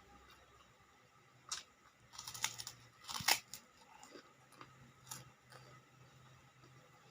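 Close-up eating: kerupuk crackers crunched and chewed, with a sharp crunch about a second and a half in, a cluster of loud crunches in the middle, and softer chewing after.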